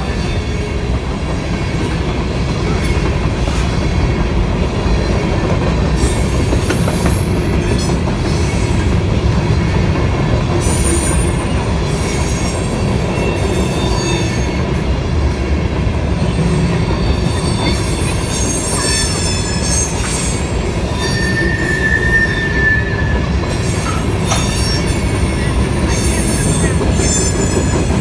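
Norfolk Southern freight train rolling past, its cars' wheels rumbling steadily on the rails. High-pitched wheel squeals come and go over the rumble.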